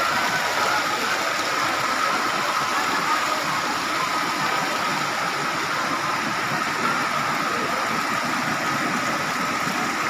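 Rushing water of a rocky stream cascading over boulders: a steady, even rush, with a faint steady high tone above it.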